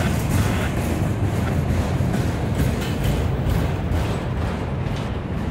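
Autorack freight cars of a passing freight train rolling by, their steel wheels giving a steady low rumble on the rails with faint clicks.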